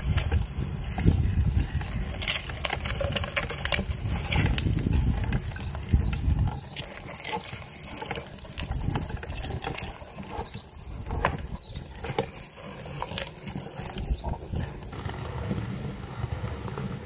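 Hand-cranked meat grinder being turned as it crushes a plastic Kinder Joy capsule, giving many irregular cracks and clicks. A low rumble runs under the first six seconds or so.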